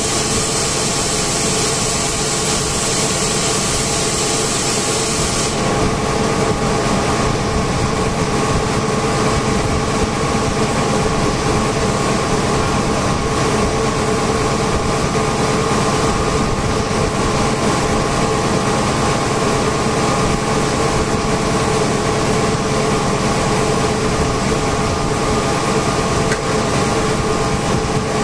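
Steady drone of running industrial machinery, with several steady tones through it. A high hiss cuts off about five and a half seconds in.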